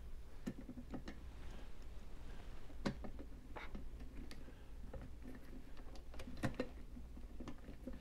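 Light, irregular clicks and taps of a clear plastic tubular practice lock being handled and fitted between the padded jaws of a small bench vise.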